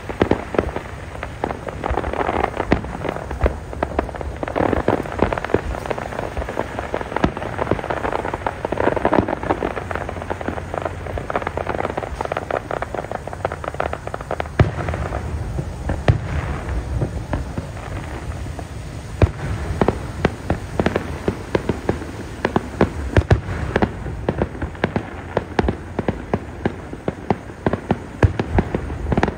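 Aerial fireworks display: a dense, continuous crackle of many small pops and bangs from bursting shells, with a low rumble underneath and now and then a louder single crack.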